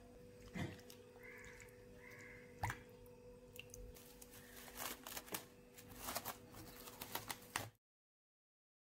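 Metal kitchen tongs clicking and knocking against a ceramic bowl while chicken is turned in buttermilk, followed by plastic cling film crackling as it is pulled over the bowl. Faint, over a low steady hum, and cut off suddenly near the end.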